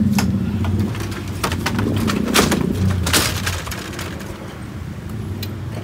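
GEA YDC-3B aluminium ambulance stretcher being pulled out of the ambulance and rolled down its loading ramp: a run of metallic clanks and rattles from the frame, legs and wheels, loudest in the first half, over a steady low rumble.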